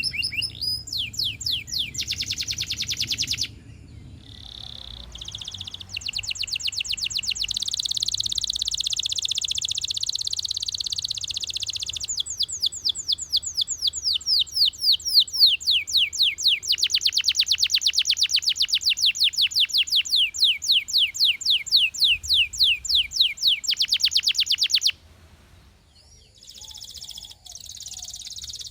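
Domestic canary singing long, rapid trills of evenly repeated high notes. The song softens briefly about four seconds in, then picks up again and breaks off sharply near the end.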